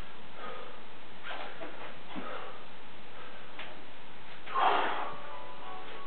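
Heavy rhythmic breathing of a man snatching a 20 kg kettlebell: sharp sniffs and forceful exhales, one with each lift, the loudest a hard exhale about three-quarters of the way through. Near the end, steady chiming tones start and keep sounding.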